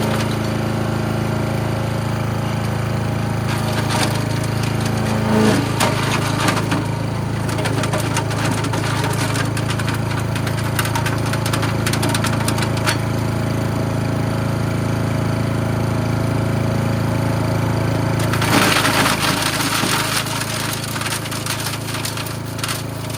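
Gas-engine chipper shredder running steadily under load, its blades chewing through sticks and leaves with constant crackling and snapping of wood. The crunching gets heavier about 18 seconds in.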